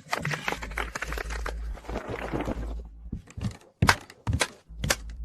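A quick run of thudding footfalls and knocks, with a few loud, sharp strikes in the last second and a half, as a runner dashes and leaps across a test course.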